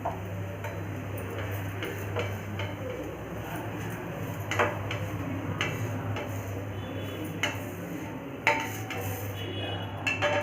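Kitchen utensils clinking and scraping against a pan and plate as a cooked dosa is lifted off and served: scattered sharp clinks, the loudest about four and a half and eight and a half seconds in, over a steady low hum.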